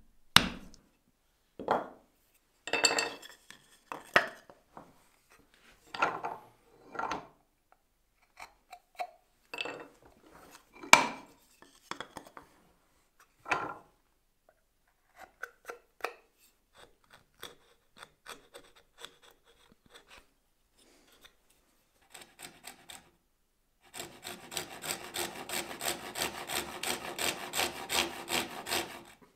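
Scattered taps and scrapes of marking out on a wooden workbench, then, from about 24 seconds in, a hand backsaw cutting a small block of wood in steady back-and-forth strokes.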